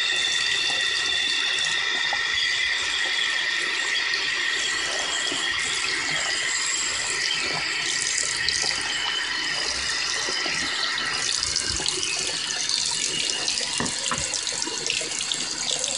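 Bathroom sink faucet running into the basin, a steady rush of water. After about eleven seconds it turns rougher and more irregular.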